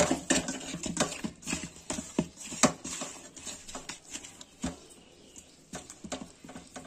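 Hands mixing salt and turmeric into cut tilapia pieces in a stainless steel bowl: irregular wet slaps and clicks of fish against the metal, thick in the first three seconds and sparser after.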